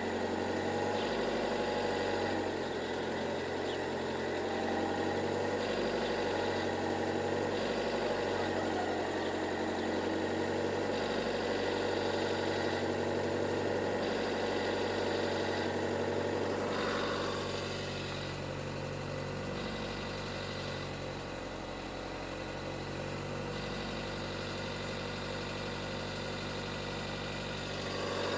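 Renault Megane II's 1.5 dCi four-cylinder turbodiesel idling with a metallic knock. It runs steadily and becomes a little quieter about two-thirds of the way through.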